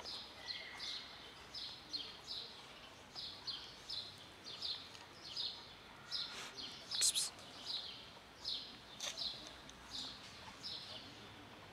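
A small bird chirping over and over, short high downward chirps about twice a second, with a sharper, louder sound about seven seconds in.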